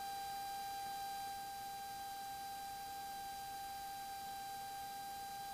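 Steady, faint high-pitched tone over a low hiss in the aircraft intercom audio feed: electrical whine on the line, with no speech on the radio.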